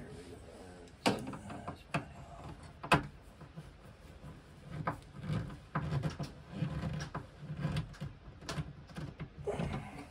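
Hands working a ground wire and tools inside a sheet-metal electrical box: a series of sharp clicks and knocks, the loudest about three seconds in, with rustling handling noise between.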